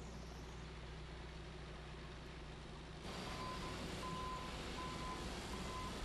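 Faint steady engine hum of heavy construction machinery. About halfway through, a reversing alarm beeps four times, a little under a second apart.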